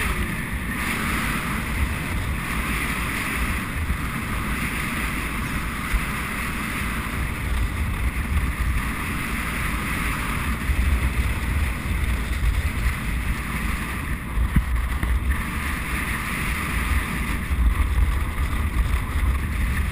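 Steady wind noise buffeting a helmet-mounted camera microphone as a racehorse gallops at workout speed, gustier in the last few seconds.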